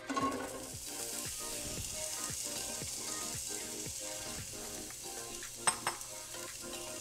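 Diced onion going into hot olive oil in a frying pan, sizzling loudly at first and then settling to a steady sizzle as it is stirred. Two sharp taps of a utensil on the pan come near the end, over faint background music.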